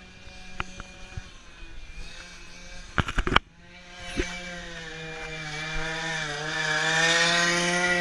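Small two-stroke strimmer engine of a go-kart running, a few loud knocks about three seconds in from the camera being handled, then the engine growing steadily louder, its pitch dipping briefly and rising again around six seconds in.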